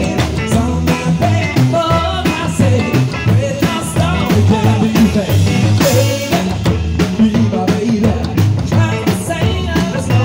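Live rockabilly band playing: upright double bass walking a steady low line under a drum kit's regular beat, with a sung vocal line.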